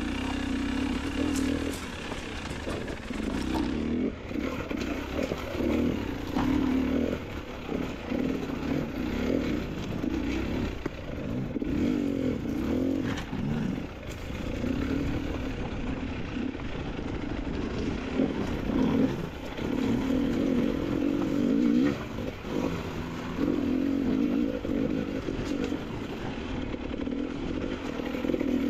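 Motorcycle engine being ridden off-road, its revs rising and falling every second or two as the throttle is opened and closed, with a few knocks over the engine noise.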